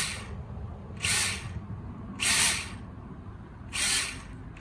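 The drone's small brushless motors and 2-inch propellers spinning up in four short blips of about half a second each, a hissing whoosh each time, as the drone is armed and throttled to test a motor whose ESC has been spinning up unreliably.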